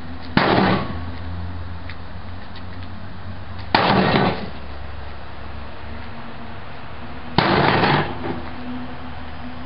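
A big hammer striking the metal casing of an old microwave oven three times, about three and a half seconds apart, each blow ringing and rattling briefly.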